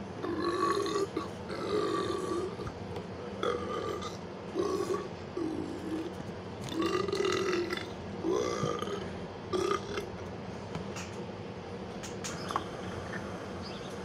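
Repeated burping: about eight short burps in a row over roughly ten seconds, then a few faint clicks.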